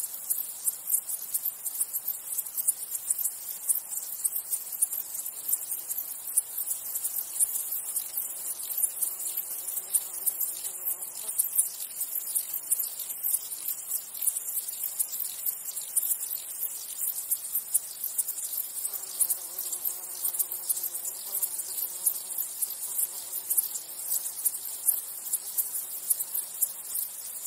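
Steady, dense chorus of chirping insects, very high-pitched and rapidly pulsing. A lower buzz of a flying insect passes about ten seconds in and again around twenty seconds.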